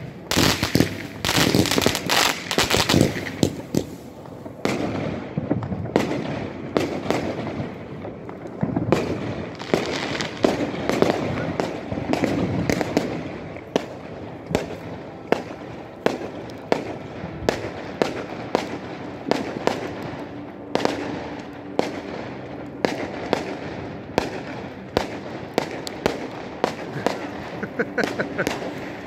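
A consumer firework battery (cake) firing shot after shot. A dense volley of bangs comes in the first few seconds, then a steady run of sharp reports, about one or two a second, with crackling in between.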